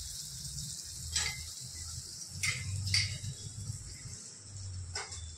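Vegetable masala sizzling faintly in a steel kadhai as shredded leftover roti is tipped in, with a few sharp clinks of a steel plate knocking against the pan.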